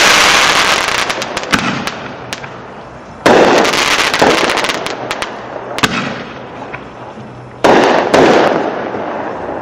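World Class Instigator consumer artillery shells bursting overhead: a loud boom about three seconds in and another about eight seconds in. Each fades slowly with scattered small pops and crackles.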